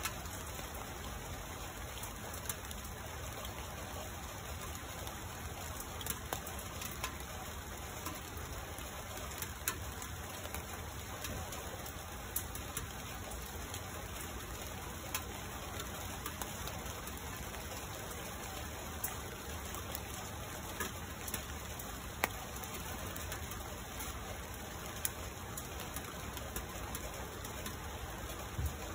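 Steady rain falling on the leaves of a tree, a continuous even hiss with individual drops ticking sharply now and then.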